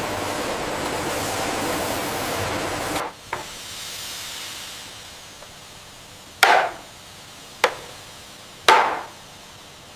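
A steady hiss of factory noise for about three seconds, then it cuts off and three heavy chopping strikes land about a second apart, each ringing on briefly.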